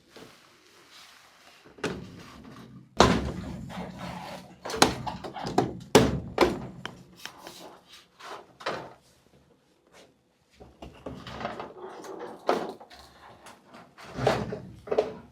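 Irregular knocks and clatter of hard parts being handled while a bathroom ceiling heater is taken apart, the loudest about three and six seconds in.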